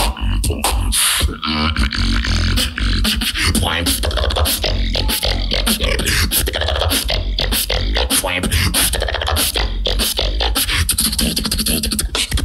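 Solo beatboxing into a microphone: a fast, dense run of kick, snare and hi-hat sounds over heavy, sustained bass.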